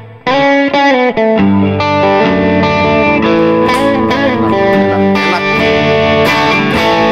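Stratocaster-style electric guitar played through a Valeton GP-100 multi-effects pedal on a crunch preset, giving a lightly overdriven tone. After a short break just at the start, it plays sustained chords and single-note lines without pause.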